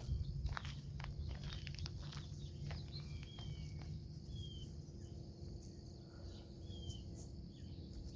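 Outdoor rural ambience: a few sharp clicks like footsteps in the first two seconds, then a bird repeating a short falling chirp about four times, over a faint high hiss and a low rumble.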